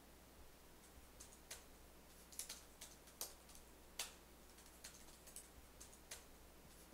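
Faint, irregular keystrokes on a computer keyboard, typing in short runs, with a couple of louder taps about three and four seconds in.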